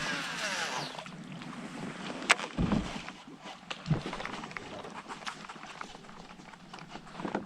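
Water sloshing and gurgling around a fishing kayak, with scattered sharp clicks and two dull knocks against the hull a little after the middle.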